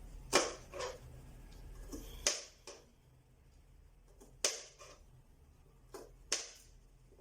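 Knife knocking on a wooden cutting board while cutting garlic and ginger: four pairs of sharp knocks, about two seconds apart.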